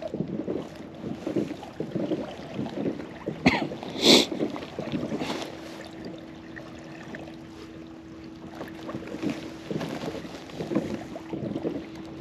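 Water sloshing and slapping against a kayak hull in gusty wind, with a sharp knock and a splash about three and a half to four seconds in and a low steady hum through the second half.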